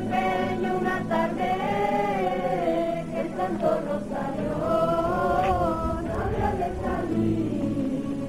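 A group of men and women singing together in unison while walking, a slow hymn-like song with long drawn-out, wavering notes.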